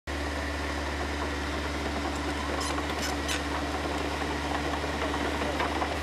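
Bulldozer's diesel engine running steadily with a low hum, with a few brief high squeaks about halfway through.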